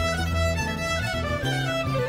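Background folk music: a fiddle playing a quick melody over held low notes.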